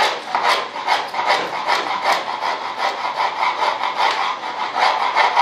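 Small hand tool sawing or scraping back and forth into a foam wing core: a steady run of rasping strokes, about three a second.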